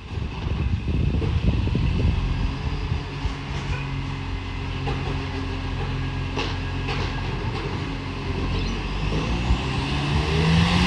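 Diesel engine of a Euro 6 garbage truck with an exhaust leak, its exhaust making a rapid low puffing rattle. It then runs more steadily, and its pitch rises near the end as the engine picks up revs.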